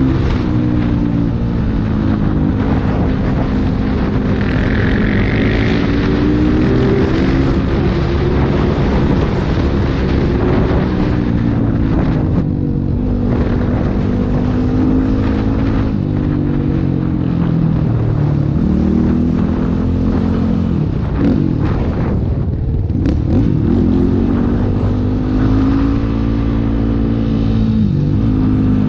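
Motorcycle engine running steadily while riding, its pitch rising and falling repeatedly as it speeds up, slows and changes gear.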